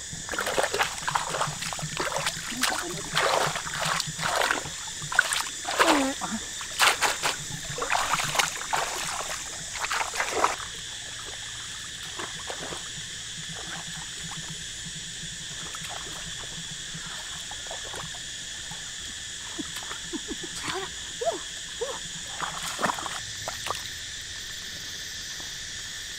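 Water splashing and sloshing in irregular bursts for about ten seconds, then only a few scattered small splashes.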